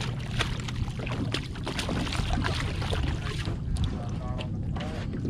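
Hooked porgy (scup) splashing at the surface and being swung into a boat, with many short splashes, knocks and clicks of handling over a steady low hum. About four seconds in, a faint distant voice comes over a loudspeaker: a party boat announcing the fishing regulations.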